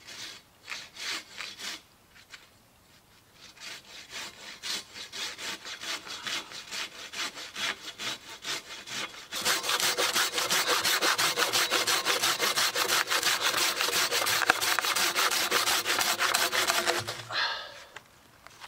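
Hand saw cutting through a felled log with rapid back-and-forth rasping strokes. A few strokes come first, then a short pause; the sawing grows much louder from about nine seconds in and stops near the end as the cut goes through.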